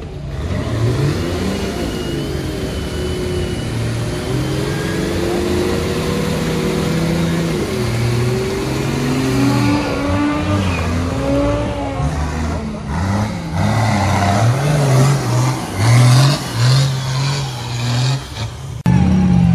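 Off-road 4x4's engine revving hard, its pitch climbing and dropping with the throttle, with a quick run of short rising revs in the second half.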